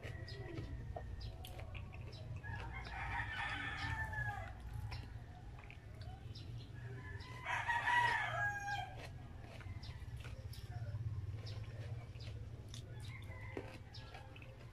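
A rooster crowing twice, about two and a half seconds in and again near eight seconds, the second crow louder. Close-up eating sounds (small wet mouth clicks) and a low steady hum run underneath.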